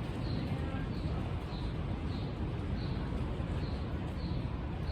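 Wind buffeting the microphone, a steady low rumble, with faint high ticks repeating about two to three times a second.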